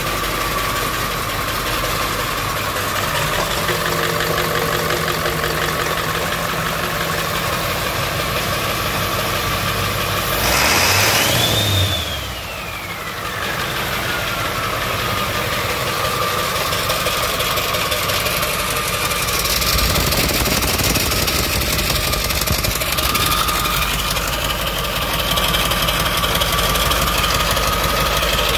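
International T444 turbo-diesel V8 (7.3 L) running on a test stand, a steady idle with a high whine over it. About ten seconds in it is briefly revved, and the whine climbs steeply, then slowly winds back down over a few seconds.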